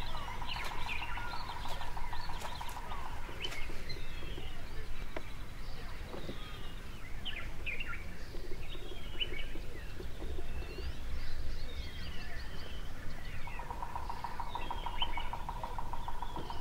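Wild birds chirping and whistling in the bush, many short calls overlapping. A steady, rapid trill sounds for the first few seconds and again near the end.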